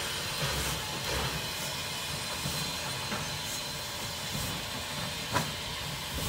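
Climax geared steam locomotive moving slowly with its train: steam hissing over the rolling of the wheels, with a sharp knock about five seconds in.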